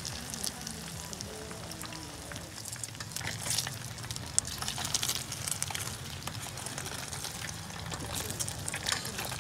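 Food frying in a pot of hot oil on a portable gas stove, crackling and sizzling, while a utensil turns the pieces in the pot. A steady low hum runs underneath.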